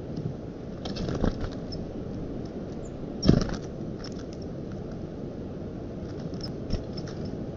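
Steady low wind rumble on an outdoor nest-camera microphone, with a few short scratching knocks, the loudest about three seconds in. Faint short high peeps are scattered through it.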